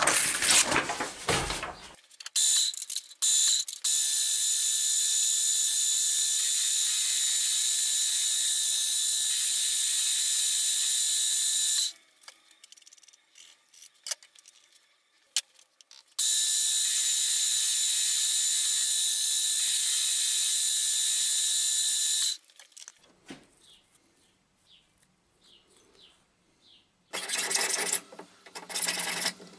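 Deckel FP1 milling machine running an end mill through a small metal part in a vise. It makes a steady high-pitched whine with gear noise in two runs of several seconds each, with a pause of scattered clicks between them. Near the end comes a short clatter of parts being handled.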